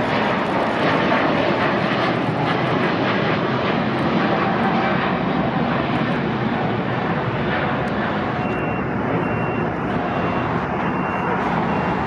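Twin GE90 engines of a Boeing 777-300ER airliner at takeoff power, a loud steady jet roar as it climbs out, easing slightly toward the end.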